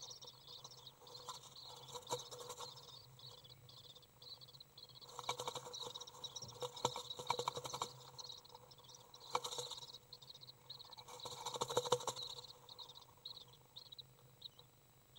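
Young common swift flapping its wings inside a wooden nest box, its wing feathers rustling and brushing against the nest and walls in four bursts, the loudest about two thirds of the way through: wing-exercising flight practice before fledging. A continuous high, rapid chittering runs underneath.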